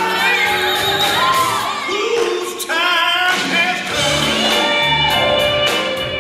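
Blues song with a singer over band accompaniment, played for dancing.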